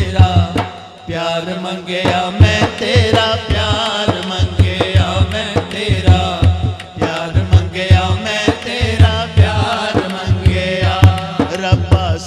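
Punjabi naat sung by a man into a microphone over a steady, rhythmic drum accompaniment.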